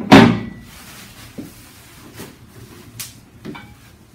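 Electric grill's lid being handled and set down: a loud clatter at the start that rings briefly, followed by a few light knocks and clicks.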